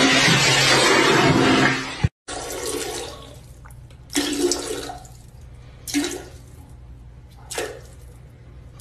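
A squat toilet flushing with a loud rush of water, cut off abruptly about two seconds in. After it, a cat meows three times, spaced a second or two apart.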